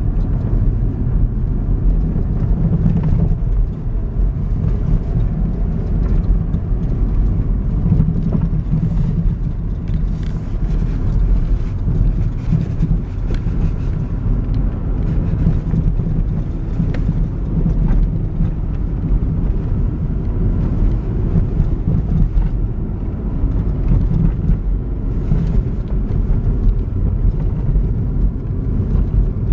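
Pickup truck driving on a snow-covered road: steady low rumble of the engine and tyres, heard from inside the cab.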